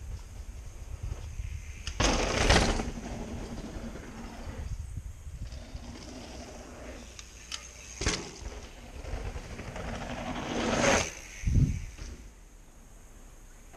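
Mountain bike on a dirt trail: tyres rushing and rattling over dirt and roots in loud surges, with a heavy low thump about eleven and a half seconds in.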